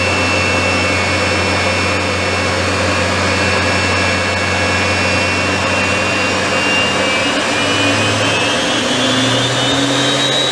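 Viper 535 turbojet of a BAC Strikemaster running on a ground run, heard from the cockpit: a steady loud whine over a low hum. From about seven seconds in, the whine rises in pitch and settles higher as the engine speeds up.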